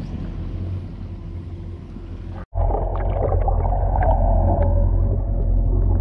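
On the open boat deck, wind and sea with a low steady hum. About two and a half seconds in it cuts abruptly to sound recorded by an underwater camera: a louder, muffled low rumble and hum with scattered faint clicks and crackles.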